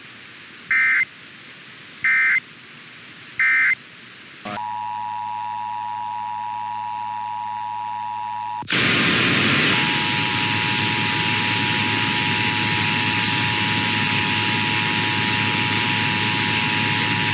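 Emergency Alert System broadcast audio: three short, shrill digital data bursts about a second apart, the end-of-message code that closes a test. A steady tone over a low hum follows, then a loud radio hiss comes in with the EAS two-tone attention signal sounding steadily over it, announcing the next station's test.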